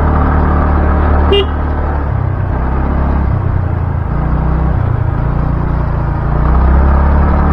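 Motorcycle engine running while riding, a steady low rumble whose note changes about two seconds in and gets louder about six seconds in.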